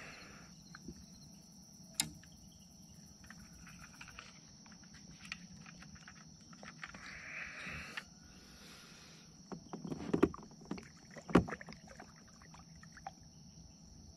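Scattered knocks and clicks of a caught bass and gear being handled in a kayak while the fish is weighed, with a short rustle about seven seconds in and one loud thump about eleven seconds in. A steady high-pitched chorus of crickets runs underneath.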